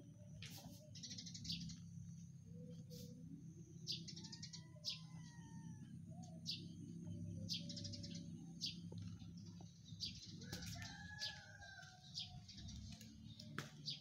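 Small birds chirping in short, high bursts every second or so, over a faint, steady low hum.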